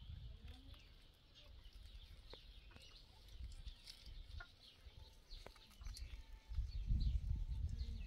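Birds chirping repeatedly in short, high, falling notes, with a low rumble rising about six and a half seconds in.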